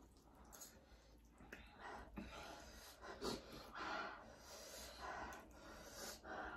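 Quiet eating sounds of two people having spicy Korean fire noodles: noodle slurping and short breaths, in several brief bursts a second or so apart.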